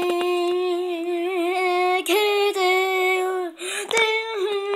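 A high voice singing three long held notes, the pitch wavering slightly, with short breaks between them.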